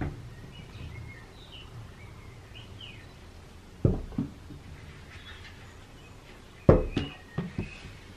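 Small toy ball thrown down a hallway, knocking against a wooden door and the floor: a couple of sharp knocks about four seconds in and a louder cluster of knocks near the end. Faint high chirps in the first few seconds.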